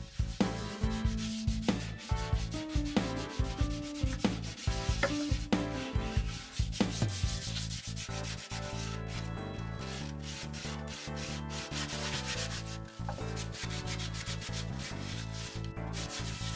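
A hand rubbing and sanding the rawhide-covered wooden tree of a western saddle, in quick repeated strokes that are busiest in the first half. A low, stepping tune plays underneath.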